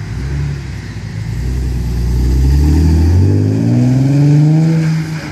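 Nissan 370Z Nismo's 3.7-litre V6 through a Fast Intentions exhaust with test pipes in place of the catalytic converters, revving up steadily for a few seconds, then dropping off near the end.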